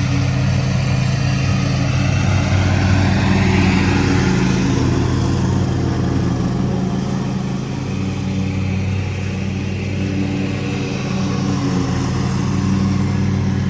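Petrol lawn mower engine running steadily.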